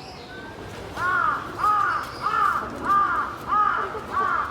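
A crow cawing six times in a quick, even series, starting about a second in.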